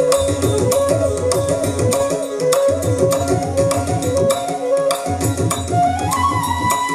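Live Carnatic dance accompaniment: mridangam strokes under a quick melodic line of short notes, which settles into a long held high note about six seconds in.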